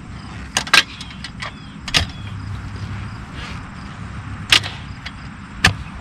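Manual clamshell post hole digger jabbed into hard clay soil: a series of sharp clanking strikes, about five, a second or more apart, as the blades bite into the ground while the hole is being widened.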